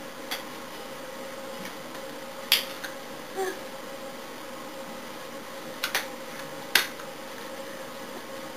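Sharp slaps and clicks of hands striking each other while signing in sign language, about six in all, the loudest about two and a half seconds in and near seven seconds in. Under them runs a steady hum at one fixed pitch.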